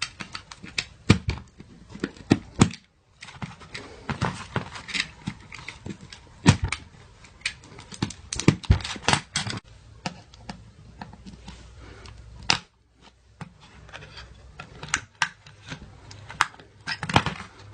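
Plastic case of a Samsung USB charger being pried open with a tool: irregular clicks, cracks and scrapes as the glued seam gives way, with short pauses between bouts of effort.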